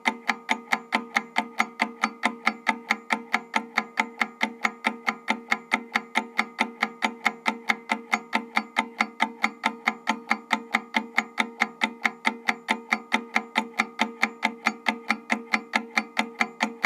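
Mechanical analog timer ticking rapidly and evenly, about five ticks a second, each tick carrying a slight metallic ring from the timer body.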